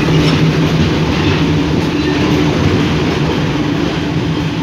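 Diesel locomotives, an Alstom Class M9 working with a Class M5b, running past close by: a loud, steady engine drone with a low hum over rail noise.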